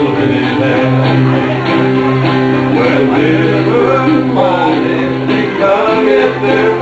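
Live country band music, with a guitar strumming over a steady bass line.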